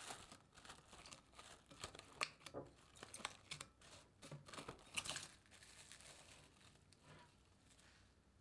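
Plastic cling wrap crinkling as it is stretched and pressed over the rim of a glass mixing bowl, covering bread dough for its first rise. A faint, rapid series of small crackles that thins out and dies away about two-thirds of the way through.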